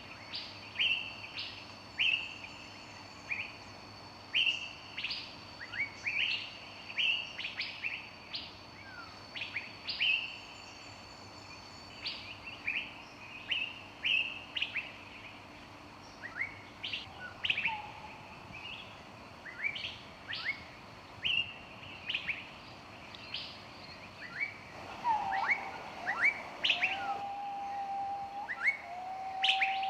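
Several songbirds chirping in a forest: short, sharp chirps sweeping quickly up or down in pitch, about one or two a second, over a thin steady high tone. From about 25 seconds in, a lower whistled call with long held notes joins them.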